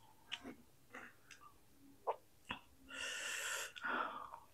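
Close-miked mouth sounds of eating: a few short crunchy clicks of chewing fried tempeh, then about three seconds in a long hissing breath drawn and let out through the mouth, lasting just over a second.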